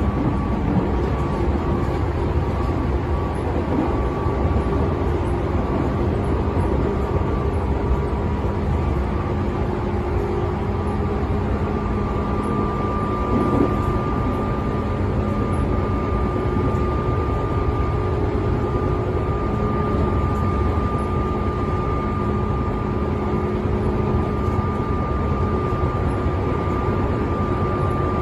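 Tobu 10000 series electric train running at speed between stations: a steady rumble of wheels on rail with a continuous motor hum and a thin high tone that grows stronger about halfway through.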